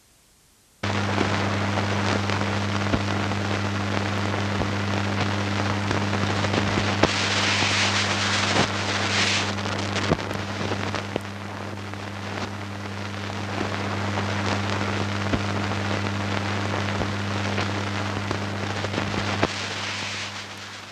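Steady hiss with scattered crackles and clicks over a low electrical hum, starting suddenly about a second in: the noise of an archival recording's soundtrack with no programme sound on it. It turns harsher for a couple of seconds near the middle and drops away just before the end.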